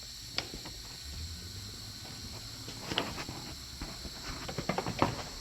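Plastic push-type retainer clips being pulled out and handled: scattered small clicks and taps, with a quick cluster of several near the end.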